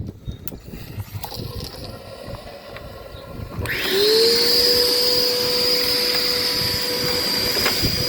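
Dirt Devil upright vacuum cleaner motor whine cuts off abruptly, leaving a few seconds of quiet with a few small clicks. About three and a half seconds in the motor starts again, its whine rising in pitch as it spins up, then running steadily.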